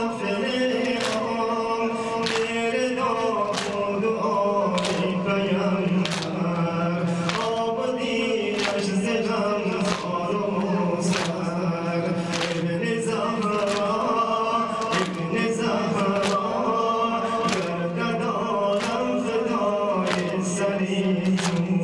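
A male reciter sings a noha, a Shia mourning lament, through a microphone. Mourners beat their chests in unison (sineh-zani) with a sharp slap a little under once a second.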